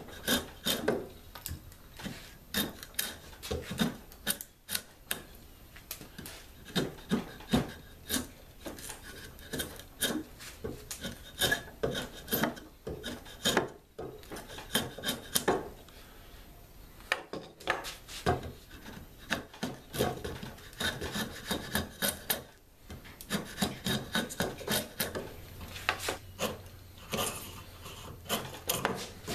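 Draw knife shaving a wooden 2x4 held in a bench vise: short scraping strokes in quick, irregular runs, broken by a few brief pauses, as the handle's grip end is roughed into a rounded shape.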